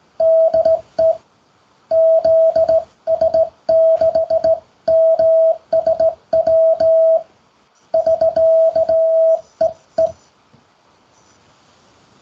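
Morse code (CW) sent by hand as a single steady beep keyed on and off in dots and dashes, each element clicking as it starts and stops; the sending ends about ten seconds in. It is a sign-off: Roger, the two call signs, thanks for the QSO and 73.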